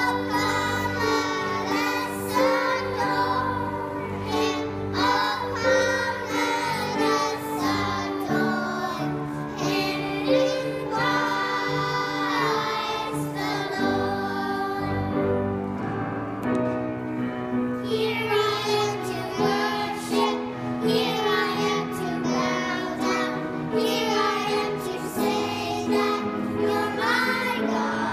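A group of young children singing a song together over an instrumental accompaniment with steady sustained bass notes.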